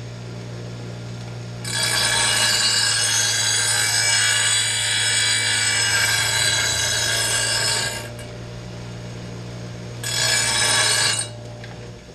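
Bench grinder motor running with a steady hum while the edge of a steel lawn mower blade is sharpened on the wheel: one long grinding pass of about six seconds starting about two seconds in, then a shorter pass of about a second near the end.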